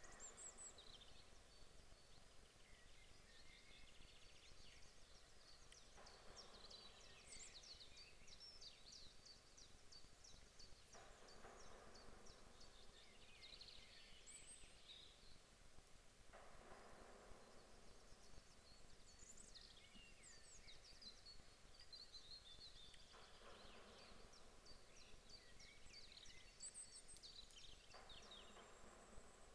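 Faint birdsong from several songbirds, short trills and chirps overlapping throughout. A soft rushing sound recurs about every five seconds.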